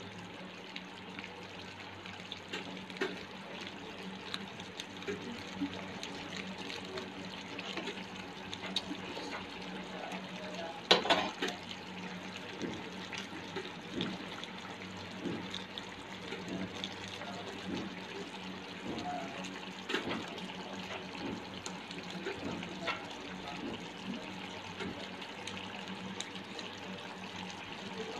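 Chicken pieces simmering in oyster sauce in a pan: a steady sizzle and bubble with scattered small pops, and one louder knock about eleven seconds in.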